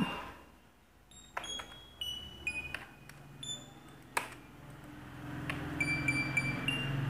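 Scattered short, high beeping tones, several sounding at once, with a few sharp clicks; a low hum comes up about five seconds in.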